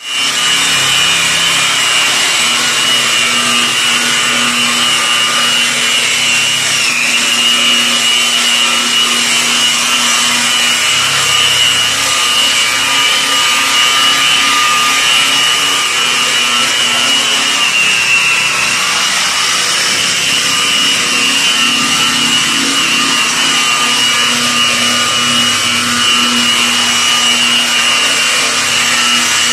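Angle grinder with a polishing pad running steadily, buffing a Venetian plaster wall: a high, steady motor whine over the rub of the pad. The whine dips briefly twice.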